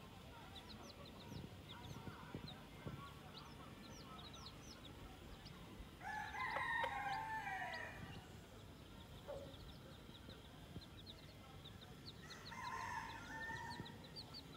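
Chicks peeping continually in short, high calls, while a rooster crows, once about six seconds in and again near the end; the crows are the loudest sounds.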